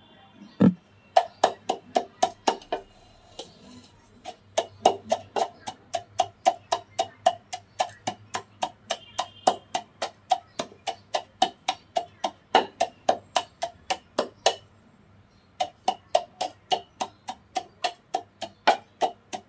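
Wooden pestle pounding in a wooden mortar, crushing naphthalene mothballs into fine powder. The knocks are steady at about four a second, with a short pause about four seconds in and another about fifteen seconds in.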